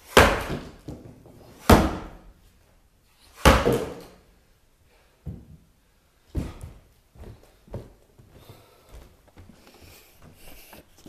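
Heavy chopping blows into a wooden log, three loud strikes a little under two seconds apart. They are followed by several lighter knocks and clatter.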